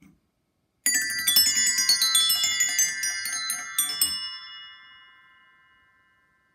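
A wheel of eight rainbow-coloured toy bells set spinning by hand, ringing in a rapid jangle of many different pitches for about three seconds. The bells then ring on and fade away.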